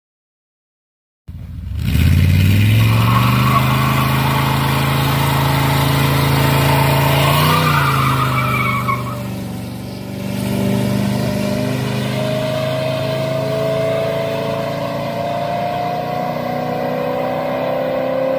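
A motor vehicle engine running loudly after a second of silence: its pitch rises at first and then holds steady, with a slow upward-gliding whine in the second half.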